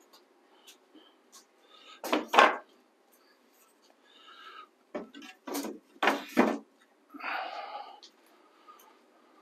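Wooden boards knocking and clattering as they are handled and set down: a couple of sharp knocks about two seconds in and a cluster of several more a little past the middle.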